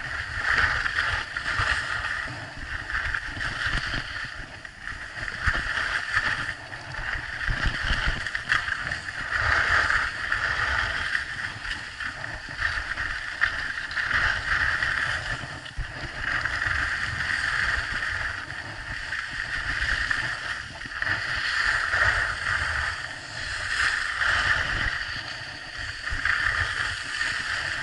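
Wind buffeting an action camera's microphone during a fast ski run, with the steady hiss and scrape of edges carving over packed snow, rising and falling every couple of seconds.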